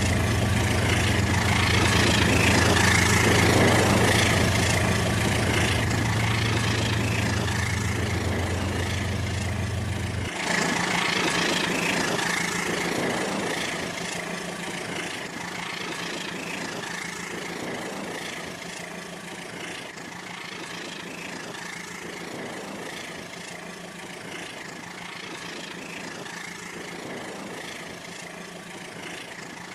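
Rail King battery-powered toy train running on its plastic track: a steady mechanical running noise with a thin high tone. A low hum cuts off suddenly about a third of the way in, and the running sound then slowly grows fainter.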